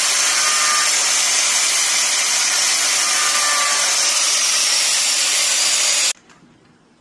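Power grinder running against the steel of a truck's frame rail, a loud steady grinding hiss that cuts off abruptly about six seconds in.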